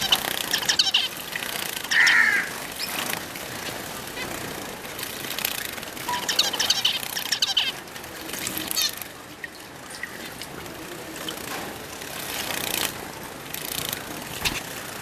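Pet finches chirping in quick bursts, with short fluttering and splashing noises as they bathe.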